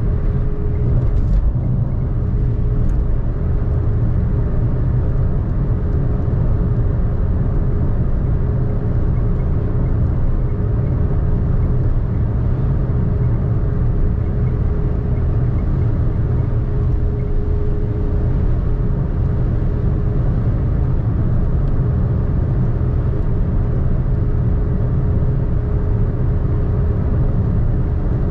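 Car driving at a steady speed: a constant low rumble of tyres on the road and the engine, with a faint steady tone running through it.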